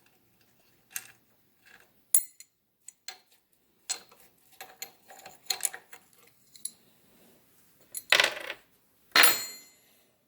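Metal hand tools and engine parts clinking and clattering while a wrench works the rocker-shaft nuts on a VW Type 1 engine's cylinder head: scattered sharp clicks, a run of light ringing clinks in the middle, and two louder metallic clatters near the end.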